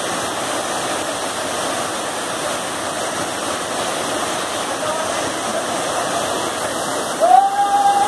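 Waterfall pouring over rocks into a pool, a steady rushing of water. Near the end a person lets out one loud, drawn-out yell over it.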